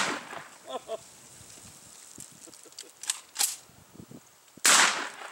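Shotgun slug blasts: the fading tail of one shot at the start and a second loud shot about four and a half seconds in, each dying away quickly. Two short sharp clicks come a little over a second before the second shot.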